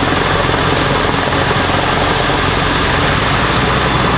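A steady, loud engine running, with a constant low hum under a wide hiss.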